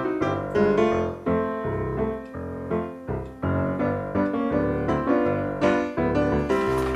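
Background music led by piano, its notes struck one after another in an even rhythm.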